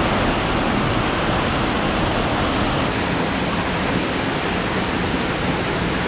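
A waterfall's steady rush of falling water.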